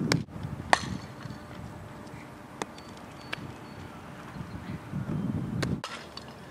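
A single sharp crack about a second in, then quiet outdoor ambience with a few faint ticks. A low rumble of wind on the microphone swells shortly before the sound cuts off suddenly near the end.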